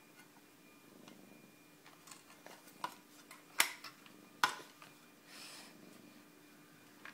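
Hard plastic parts of a toy tractor clacking as a toddler handles them: a few sharp knocks and small ticks, the two loudest a little under a second apart, over a faint steady hum.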